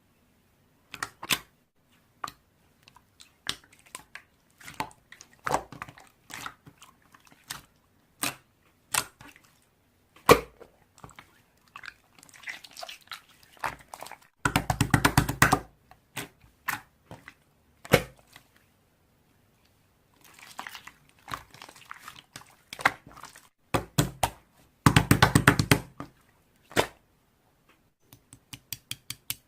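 Slime being squished and pressed by hand: scattered sticky clicks and pops, with two bursts of rapid crackling, about halfway through and again near the end.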